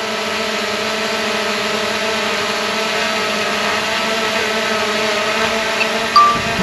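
DJI Mini 3 drone's propellers running with a steady, slightly wavering whine. A short beep sounds a little before the end.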